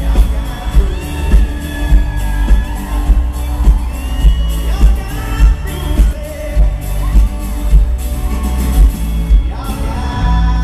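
Live pop-rock band playing loud through a concert PA, with a lead vocal over a heavy, steady kick-drum and bass beat, heard from the middle of the crowd.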